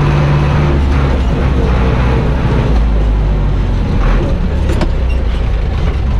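Zetor 7245 forestry tractor's diesel engine running loudly: a steady drone that turns to a rougher, noisier rumble about a second in.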